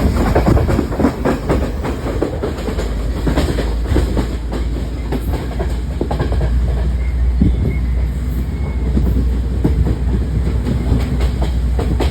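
Steady low rumble with dense, irregular clattering and knocking, the sound of a moving vehicle.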